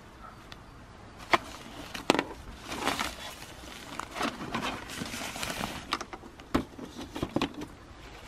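Nylon mesh drawstring bag rustling as a nested camping cook pot set is pulled out of it, with a couple of sharp clicks early on and a knock about six and a half seconds in as the pot is set down on the table.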